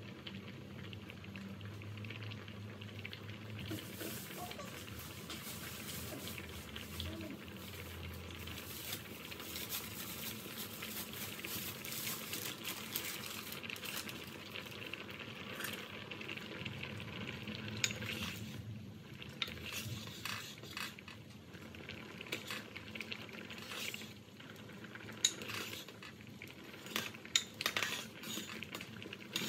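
A pot of milky sweet potato dessert boiling, a steady bubbling hiss that grows stronger a few seconds in as it froths up. In the last third a metal ladle clinks and scrapes against the pot as it is stirred, with the sharpest clinks near the end.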